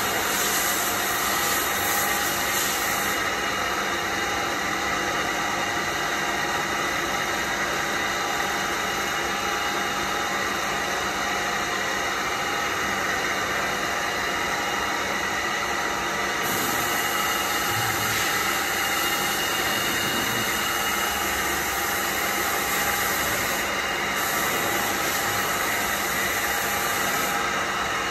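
DPM CNC bed mill running steadily under power: an even mechanical hum and hiss with several steady whining tones.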